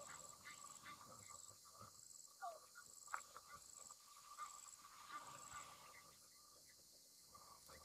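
Faint insect chorus in grassland: a steady drone with a high chirp repeating about twice a second that stops about two thirds of the way through. Two short falling calls and a single click stand out above it.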